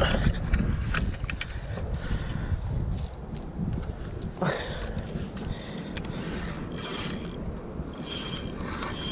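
Spinning fishing reel being worked while a hooked carp is played: the reel turns and clicks, with a steady high whine through the first three seconds or so and low rumble throughout.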